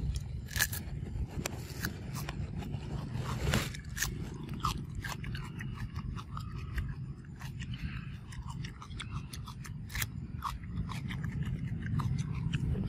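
A macaque biting and chewing a raw cucumber, with irregular crunches and clicks.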